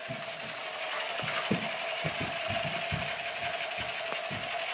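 Toys being knocked and rattled as they are handled and struck: a run of irregular dull knocks and clicks, several a second, over a steady hum.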